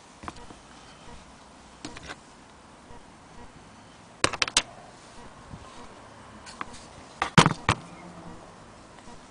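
Clicks and knocks from an antique Willcox & Gibbs sewing machine being handled and turned over. There are a few light ones, then a quick cluster about four seconds in, and the loudest knocks about seven seconds in.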